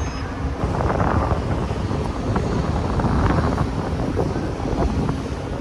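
Wind buffeting the microphone over a steady low rumble of dockside machinery, with a few faint ticks.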